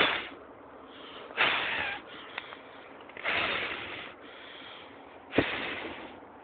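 A small firework spraying sparks in spurts: four hissing bursts, each lasting under a second, the last one opening with a sharp pop.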